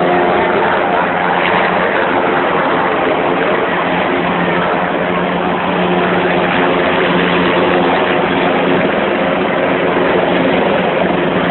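Eurocopter EC725 Cougar military helicopter running steadily: loud, even rotor and turbine noise with a steady low hum.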